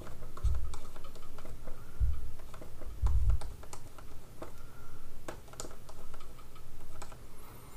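Stylus tapping and scratching on a tablet surface during handwriting: a run of small irregular clicks, with a few dull low knocks.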